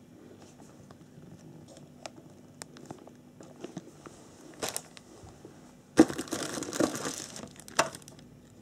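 Clear plastic parts bags crinkling as they are handled in an RC kit box: scattered light rustles and ticks, a brief crinkle partway through, then a loud burst of crinkling for about two seconds near the end, closing on a sharp tap.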